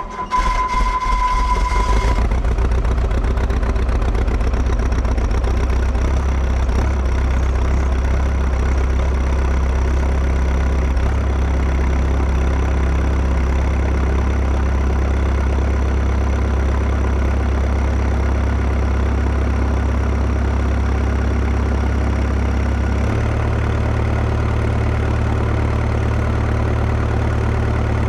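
Small excavator's diesel engine catching and then idling steadily, now that a new fuel shut-off cable is fitted; a high steady tone sounds over it for about the first two seconds. Near the end the engine's pitch steps up and then holds.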